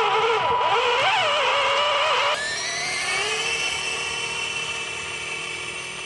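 Electric drive motors and gearing of a 1:12 RC tank whining, the pitch wavering up and down with the throttle. A couple of seconds in, the sound changes to a steadier whine that slowly rises in pitch.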